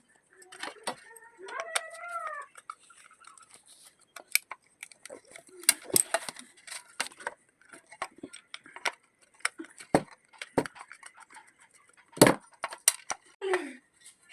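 Scattered clicks, taps and knocks of tools and parts being handled on a repair bench, the loudest a sharp knock about twelve seconds in. A short pitched call with a wavering rise and fall sounds between one and two and a half seconds in.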